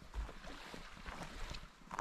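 Wind buffeting the microphone with low thumps, over small waves lapping and splashing at a lake shore in scattered little ticks.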